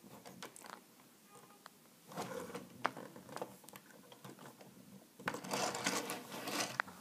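Plastic parts of a Transformers Voyager Megatron action figure clicking and rattling as its joints are turned and folded by hand. There are scattered sharp clicks, one about three seconds in, and busier, louder handling near the end.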